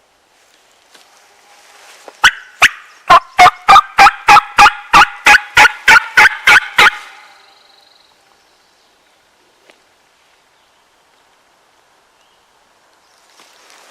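A long run of loud turkey yelps, about fourteen evenly spaced notes at roughly three a second, starting about two seconds in and stopping after about five seconds.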